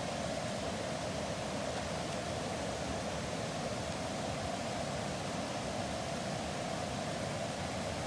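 Camp stove burner running steadily under a pot of water that is coming to the boil: an even, unchanging hiss.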